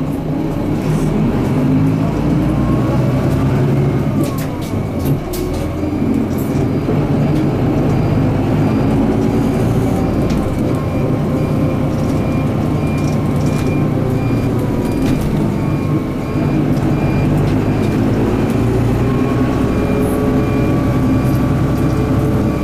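Mitsubishi Fuso Aero Midi MK (KK-MK23HH) bus's 6M61 inline-six diesel running as the bus drives slowly, heard from inside the passenger cabin as a steady drone with road noise. The level dips briefly about 16 seconds in.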